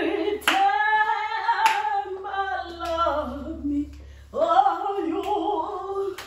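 A woman singing long, held wordless notes in mock-angelic style: two drawn-out phrases with a short break about four seconds in, the first sliding down in pitch at its end. A few sharp claps fall between the notes.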